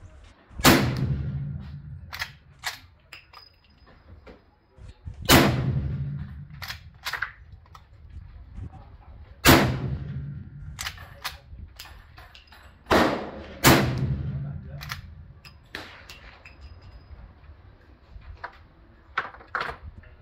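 Winchester Model 1892 lever-action rifle in .44-40 firing black powder handloads: five shots, each ringing out as it fades, the last two close together. Lighter clacks of the lever being worked come between shots.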